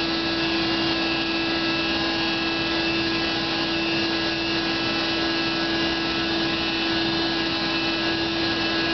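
Constant machine drone with a strong steady hum, from a large truck running in the street: construction-site noise at dawn.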